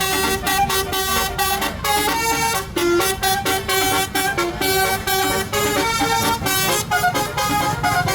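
Tour bus 'telolet' musical horn playing a melody of short pitched notes that hop between several pitches.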